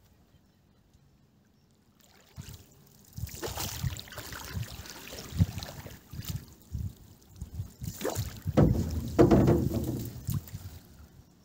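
Small boat being poled along a river: water sloshing around the hull and the wooden pole, with scattered knocks and thuds of the pole and net against the boat. It starts after about two seconds of near quiet and is loudest near the end.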